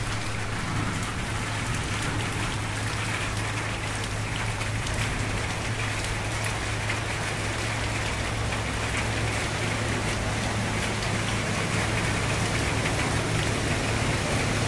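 Heavy rain pouring onto flooded road and standing water, a steady dense hiss, with a steady low hum underneath.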